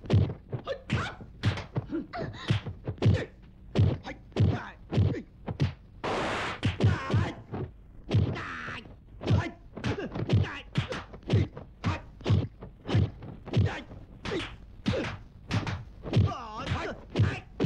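Kung fu film impact sound effects: a run of hard thuds and whacks, about two a second. There is a longer rush of noise about six seconds in and a cry near the end.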